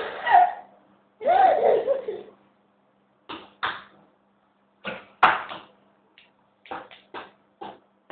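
A baby's vocal laughter: two longer bursts, the second rising and falling in pitch, then a string of short breathy pulses.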